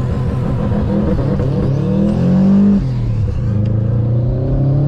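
Subaru WRX STi's turbocharged flat-four accelerating hard from a launch: the engine note rises, drops sharply at a gear change a little under three seconds in, then rises again. The driver says the clutch slipped on this launch.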